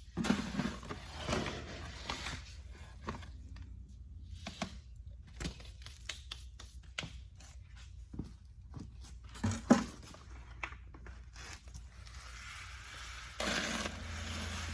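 Scattered rustling, scraping and knocking of sacks of salt and fly-control mineral being handled and opened, with a couple of sharper knocks. Near the end a steady hiss comes in.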